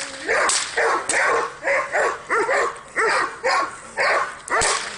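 Male Doberman barking over and over in quick, even barks, about two a second, in a protection-training bout.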